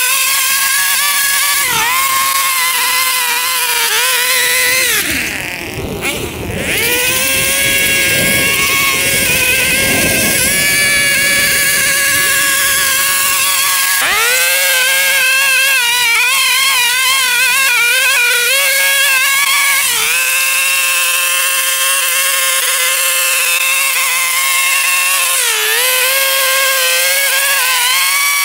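Lawn mower running through very tall, overgrown grass, a steady engine note whose pitch dips briefly several times as it bogs under the load. About five seconds in it goes rougher and a little quieter for a few seconds before settling back.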